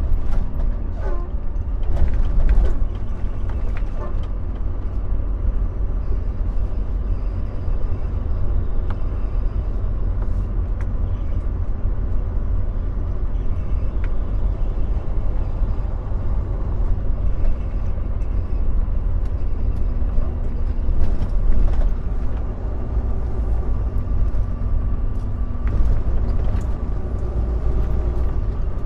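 Volvo semi-truck's diesel engine running while the truck rolls slowly, heard from inside the cab as a steady low drone. A few short clicks and knocks come in the first few seconds.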